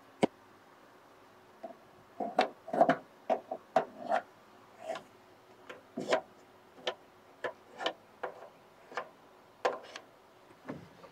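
Irregular light clicks and knocks of metal parts being handled and fitted, roughly one or two a second, as a sensor mounting bracket is positioned on the combine's clean grain elevator.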